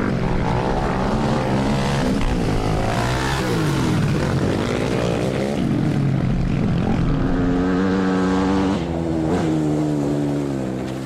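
Quad bike (ATV) engine running, its pitch rising and falling several times as it is revved, then holding steadier with a brief dip near the end.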